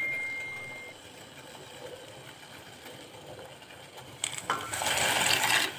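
A bell-like ding fades out over the first second. About four seconds in, dry spiral pasta is poured from a bowl into a steel pot of water: a rattling splash lasting about a second and a half.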